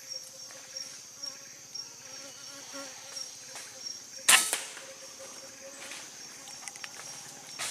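A single shot from a Semar Neo Z PCP air rifle about four seconds in, one sharp crack. Insects chirp steadily in a pulsing rhythm throughout.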